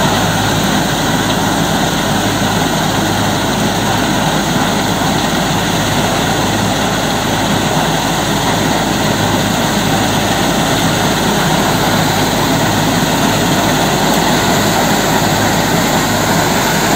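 Bhusa (straw-chopping) combine machine running loudly and steadily, a low engine hum under an even mechanical rush that does not let up.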